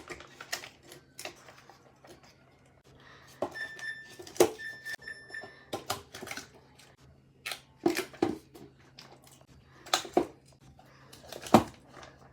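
Snacks and containers being handled and set down while restocking a fridge: a string of separate clacks and knocks at irregular intervals. A short electronic beep sounds twice about four seconds in, over a faint steady low hum.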